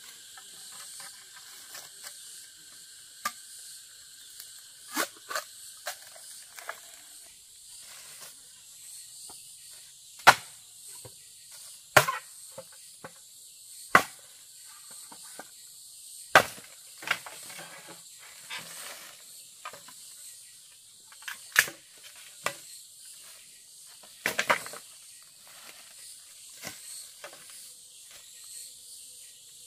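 Machete chopping at a green bamboo pole: a series of sharp knocks at irregular intervals of one to a few seconds, over steady high insect chirring.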